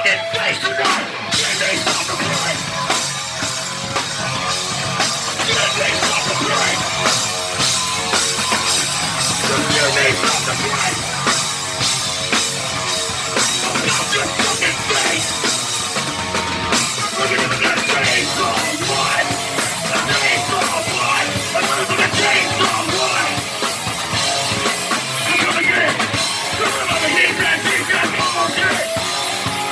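Live heavy punk band playing loud, fast rock with a drum kit to the fore, an instrumental stretch with no clear vocals.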